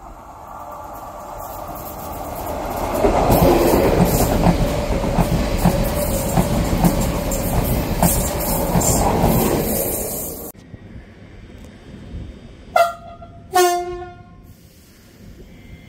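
A double-deck electric passenger train passes at speed, its wheels clicking regularly over the rail joints. The sound builds as it approaches and then cuts off suddenly. A few seconds later an SNCF electric train gives two short horn blasts, the second lower than the first.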